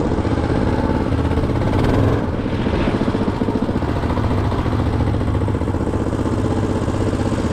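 Walk-behind tractor engine fitted to a Soviet Muravey three-wheeled scooter, running steadily with an even pulsing beat; it gets a little quieter about two seconds in.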